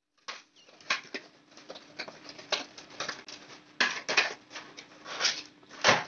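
Cardboard product box being opened by hand: irregular rustling, scraping and tapping of cardboard flaps and a paper leaflet, with a few sharper clicks.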